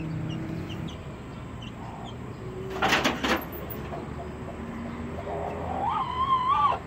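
Chickens: a chick peeps faintly at first, and near the end a hen in the coop gives one drawn, wavering call as she is reached for. A short rattle about three seconds in.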